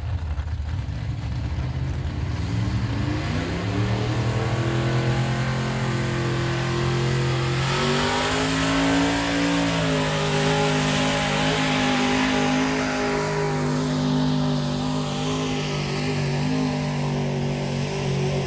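A pulling vehicle's engine. It revs up over the first few seconds, then runs steadily and loudly, its pitch briefly rising and falling about halfway through.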